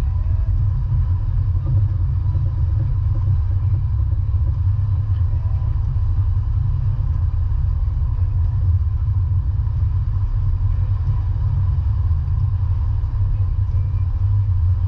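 Steady low rumble of a vehicle in motion, unbroken throughout.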